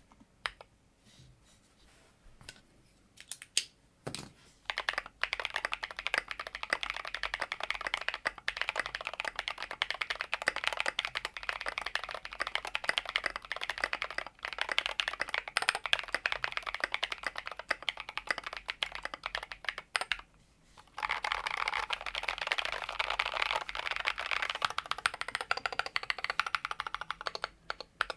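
Typing on a Tokyo60 mechanical keyboard with Drop Invyr Holy Panda tactile switches. A few single keystrokes at first, then fast, continuous typing from about four seconds in, with a brief pause about twenty seconds in before the typing resumes.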